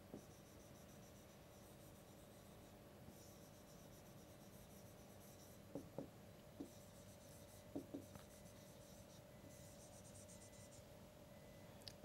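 Faint scratching of a pen writing words in short spells, with a few soft taps, over a low steady hum.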